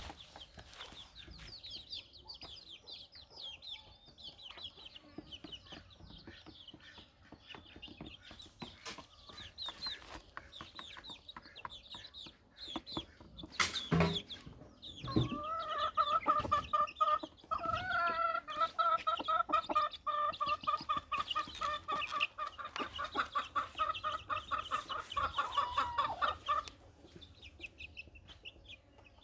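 Chickens in a village yard: high chirping for about the first half, then a long run of rapid clucking from about 15 s to about 26 s that ends on a falling note.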